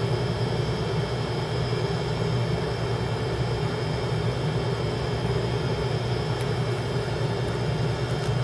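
Steady whir of a cooling fan with a constant low hum underneath, unchanging throughout.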